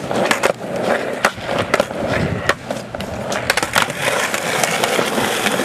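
Skateboard wheels rolling over concrete, a steady rough rumble with scattered clicks and knocks.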